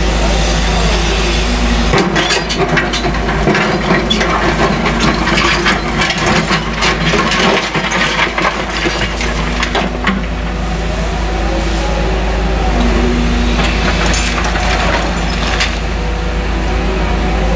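Caterpillar excavator's diesel engine running under load, with a tone that rises and falls as it works. Demolition rubble cracks, breaks and crunches for several seconds from about two seconds in, and again briefly near the end.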